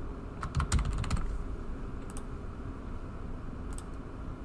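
Computer keyboard typing: a quick run of keystrokes about half a second in, then a couple of single clicks spaced well apart, over a steady low room hum.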